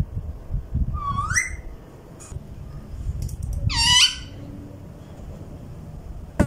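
Caged ring-necked parakeets calling: two short squawks that rise in pitch, one about a second in and a louder one near four seconds. A sharp click comes at the very end.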